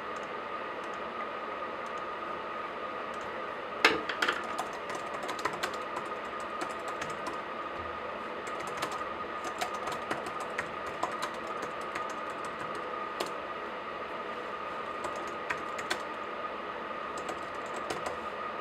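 Typing on a laptop keyboard in irregular bursts of key clicks, with pauses between them, over a steady background hiss with a faint constant tone. The first few seconds hold only the hiss; a sharp click about four seconds in starts the typing.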